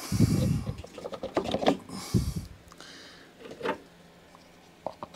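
A plastic lawn mower drive wheel being worked off its axle by hand: rough scraping and rubbing of plastic on metal, with a run of light clicks and knocks.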